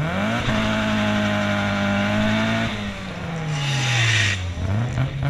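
Drift car engine revving up and held at high revs while the car slides sideways, heard from inside the car. The revs then fall away with a short burst of tyre screech about three and a half seconds in, and the engine climbs again near the end.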